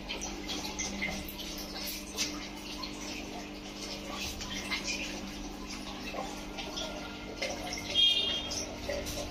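Aquarium filter running: water trickling and bubbling with small irregular drips and splashes over a steady low hum. A short, louder high-pitched squeak about eight seconds in.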